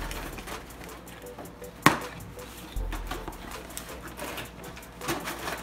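Cardboard packaging being handled and pulled from a toy box, with faint scraping and rustling and one sharp knock about two seconds in.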